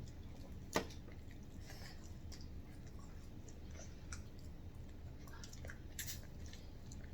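Faint chewing and mouth smacks of someone eating glazed chicken and fries, with scattered small clicks, a sharper one about a second in and another near the end.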